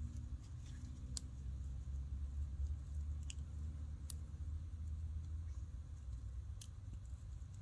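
Outdoor ambience: a steady low rumble with four short, sharp clicks spread through it.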